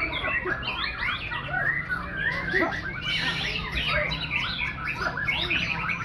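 Many caged white-rumped shamas (murai batu) singing at once on a contest hanging rack: a dense, overlapping chorus of quick chirps and whistles, over a low steady hum.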